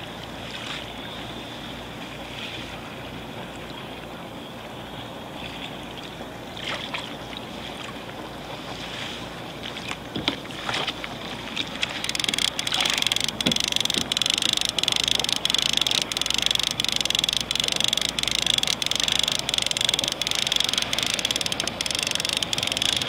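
A fishing boat's diesel engine running close by. About halfway through it gets louder, with a steady high whine and even ticking about twice a second.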